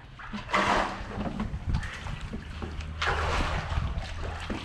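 Water splashing as a landing net scoops a hooked sheepshead beside a kayak, with a second burst of splashing and water streaming off the net as it is lifted out about three seconds in.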